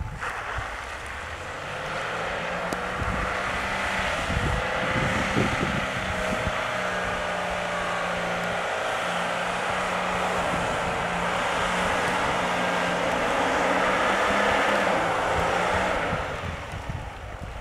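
Mitsubishi Pajero engine running hard as the 4x4 is driven through snow, a steady drone that fades out about a second before the end.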